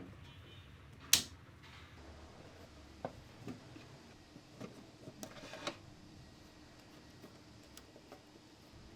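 Scattered small clicks and taps of hands working on a wall light switch and its wiring. The loudest click comes about a second in, and fainter ones follow every second or so.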